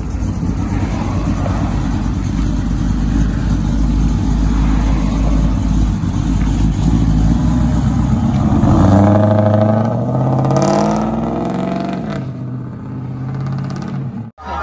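Pickup truck's engine and exhaust rumbling as it pulls away, then revving up about nine seconds in, the pitch rising and then falling away as it drives off.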